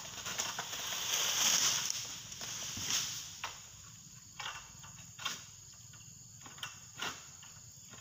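Oil palm fronds rustling in a long rush over the first couple of seconds, then a series of sharp snaps or knocks about a second apart.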